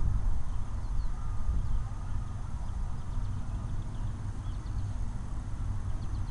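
Steady low rumbling noise on the microphone, a little louder in the first two seconds, with faint high bird chirps here and there from about three seconds in.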